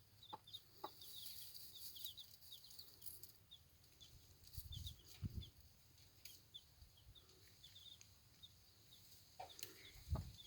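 Faint high peeping of day-old chicks: short cheeps in quick runs, with a couple of soft low thuds.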